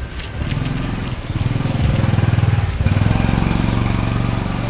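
Ginger kitten making a low, pulsing rumble as it eats, in two long stretches broken briefly about three seconds in, with faint clicks of eating.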